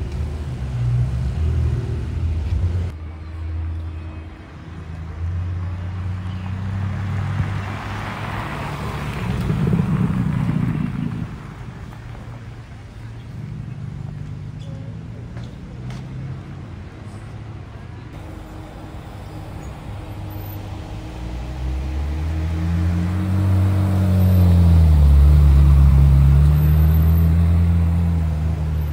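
Car engines going past at low speed, one after another; near the end a Ferrari 458 Italia's naturally aspirated V8 revs and pulls away, the loudest part, its pitch rising, dipping and rising again.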